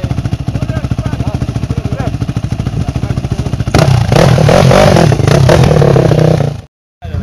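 ATV engine running at low revs, then revving up and running louder about halfway through. The sound cuts out abruptly for a moment near the end.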